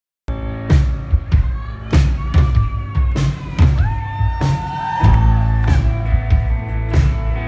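A live pop-rock band playing, cutting in abruptly about a quarter of a second in: a regular drum beat under acoustic guitar, bass and keyboard, with held melodic notes over it.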